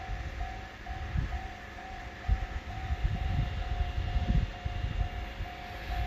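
Japanese railway level-crossing alarm ringing its repeated electronic "kan-kan" tone, a little over two strikes a second. A gusty low rumble of wind on the microphone sits underneath.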